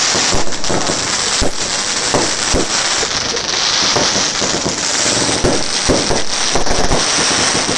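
Fireworks display going off: a continuous dense crackling, with many sharp cracks and bangs coming in quick irregular succession from bursting aerial shells and crackling stars.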